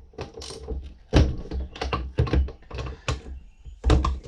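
Handling noise from transmission parts and tools being moved about by hand, with a handful of short thunks and taps. The loudest knocks come about a second in and near the end.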